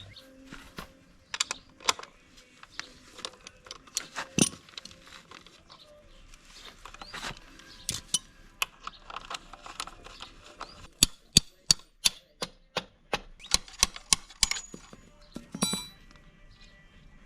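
Irregular metallic clinks, taps and knocks of hand tools and metal parts being handled during work on a motocross bike's rear wheel, thickest in a quick run toward the end, with one short metallic ring near the end.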